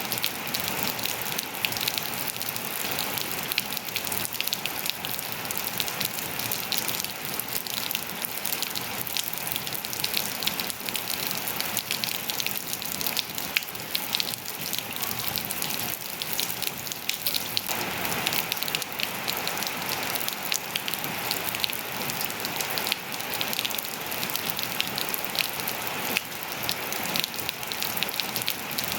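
Steady rain falling on surfaces, a dense hiss of many close individual drop hits. About two-thirds of the way through the sound grows fuller and heavier in the middle range.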